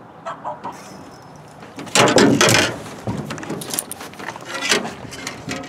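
Knocks, clatter and rustling from gear and handling in an aluminum jon boat, with one loud clattering rustle about two seconds in followed by scattered smaller knocks.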